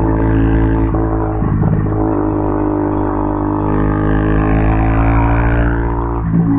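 KTM Duke 200's single-cylinder engine through an Akrapovic exhaust, running at steady cruising revs with brief dips in the drone about a second in and again near the end. A hiss rises over it from about four to six seconds in.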